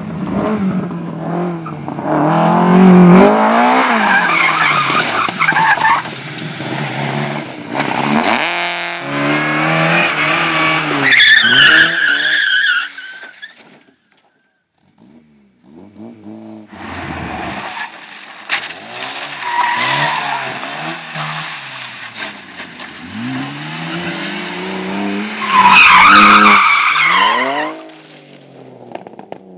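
Slalom rally car engines revving hard, rising and falling in pitch through throttle lifts and gear changes, with tyres squealing in the turns. The sound breaks off about halfway, and a second run follows that again ends in a loud tyre squeal.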